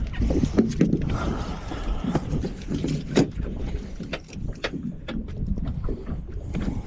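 Wind buffeting the microphone, with many short sharp clicks and knocks from handling a freshly landed black drum and clipping fish grips onto it.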